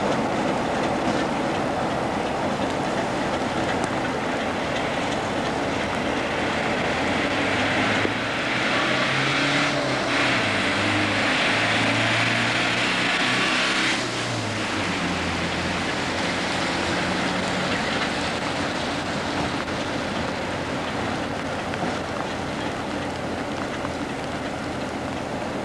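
Class 47 diesel locomotive's Sulzer twin-bank twelve-cylinder engine running as it moves slowly away along the track. Its note rises and falls over several seconds midway through, under a steady hiss.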